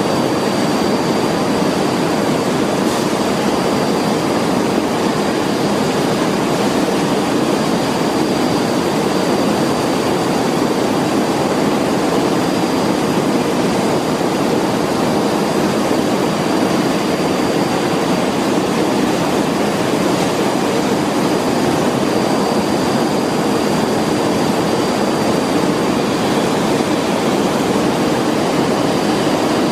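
Steady, loud rushing noise of a factory hall, with a faint high-pitched whine held throughout.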